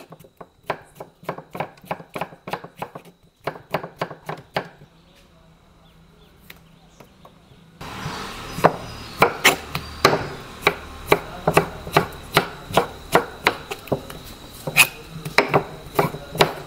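Knife slicing tomatoes on a wooden cutting board: a steady run of sharp knocks as the blade hits the board, about three a second. The knocks pause for a couple of seconds midway, then go on louder.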